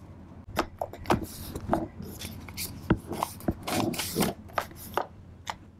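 Paper rustling and rubbing as hands press and smooth glued paper pieces flat on a journal page, with scattered small taps and clicks.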